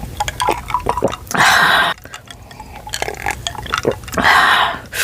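Close-miked wet mouth sounds of someone eating cheesy ramen noodles: smacking clicks throughout, with two loud slurps, about a second and a half in and again near the end.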